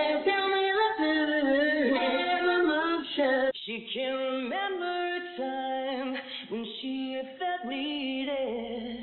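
Isolated male lead vocal, AI-separated from its backing track, gated and made lo-fi, singing a cappella in a high voice. About three and a half seconds in it cuts abruptly to a second isolated male singer with a similar high voice and vibrato.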